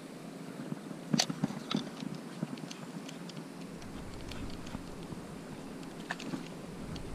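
A few light knocks and clicks in the first two seconds as the camera is handled and set in place on the boat, then faint scattered ticks over a quiet, steady background. From about halfway a low rumble comes in.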